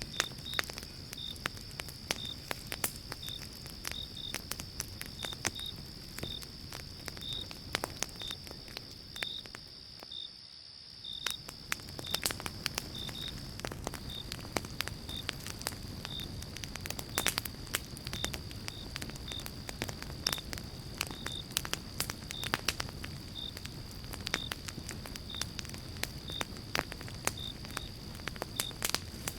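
Wood fire in a fireplace crackling and popping over a low rumble of flames, with a steady faint high hiss and soft regular chirps about twice a second. The sound nearly drops out for about a second around ten seconds in.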